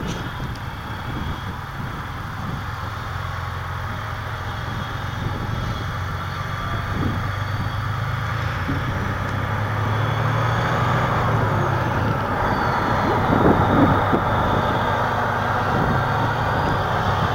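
Freightliner Coronado semi tractor driving by, its diesel engine running steadily and getting louder as the truck comes closer.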